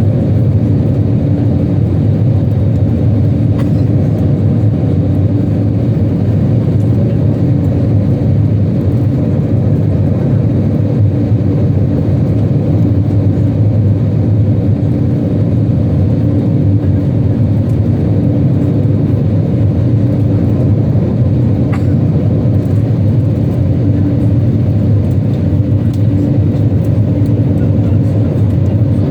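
Steady cabin drone of an Airbus A320 climbing after takeoff: engine and airflow noise heard inside the cabin by the wing, a deep even rumble with a steady low hum running through it.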